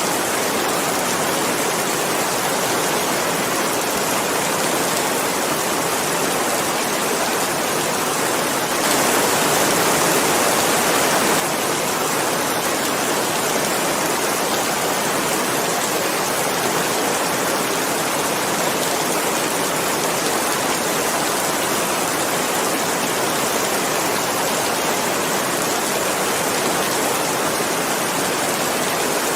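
Steady rain, an even hiss of many drops with no distinct single drops standing out; it swells slightly louder and brighter for about two and a half seconds around a third of the way in.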